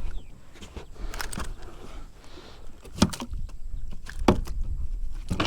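Handling noise on a plastic fishing kayak: a few sharp knocks and rattles spread over several seconds, over a steady low rumble.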